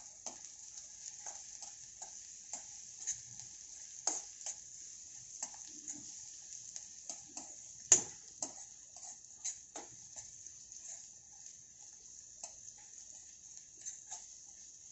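Chopped onion sizzling in hot oil in a kadhai as it is sautéed until soft, a steady high hiss with frequent short scrapes and clicks from stirring against the pan. One louder knock stands out about eight seconds in.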